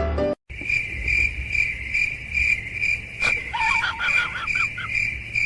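Crickets chirping steadily, about two to three chirps a second. A little past the middle, a quick run of short, high squeaks from another animal cuts in.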